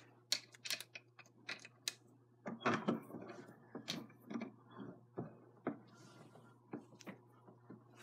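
Bench vise being closed to press a new steel cross pin into a heated RC drive shaft: irregular light metallic clicks and taps as the parts are seated between the jaws and the vise's sliding-bar handle is turned. A low steady hum runs underneath.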